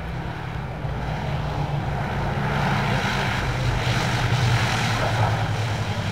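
Douglas DC-3's twin radial piston engines and propellers droning as the aircraft passes close by. The drone grows louder to a peak about four to five seconds in, then begins to fade.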